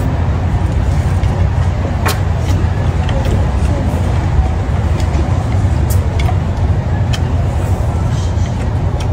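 A steady low rumble with a few scattered sharp clicks over it.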